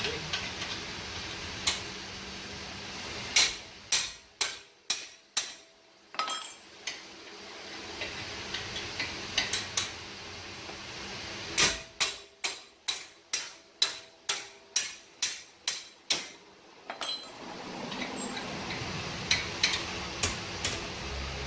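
Hammer blows on metal in two runs, about two strikes a second, with scattered lighter taps in between.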